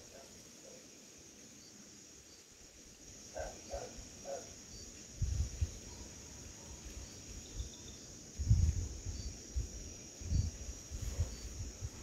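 Night chorus of insects, a steady high-pitched trill. A few faint short calls come about three to four seconds in. Dull low thumps come several times in the second half, the loudest about eight and a half seconds in.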